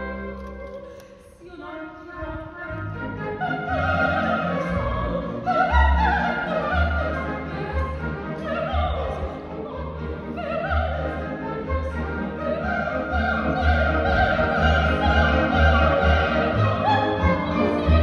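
Operatic soprano singing with symphony orchestra accompaniment. The orchestra plays briefly and softens about a second in, then the soprano's voice enters about three seconds in with a wide vibrato over the strings.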